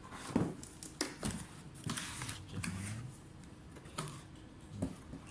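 Scattered light clicks and taps from the plastic and metal parts of a Lenovo Legion Y730 laptop being handled as it is taken apart.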